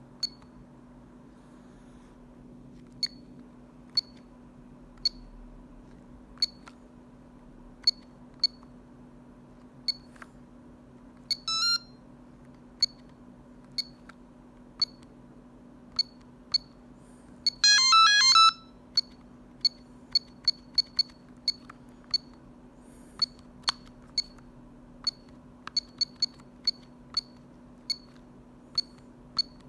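Telecom Italia Tech New Master mobile phone's keypad beeping: single short high key beeps at irregular intervals as buttons are pressed. A short ringtone melody snippet plays about eleven seconds in, and a longer one of under a second plays around eighteen seconds in.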